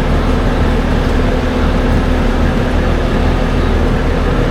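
Off-road vehicle engine running steadily at constant revs, a continuous low drone.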